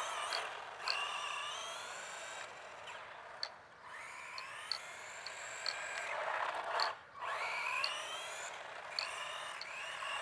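Brushed electric motor of a GPTOYS S912 1:12-scale RC truck whining as the truck drives, its pitch rising each time it accelerates, several times over, with a brief drop about seven seconds in.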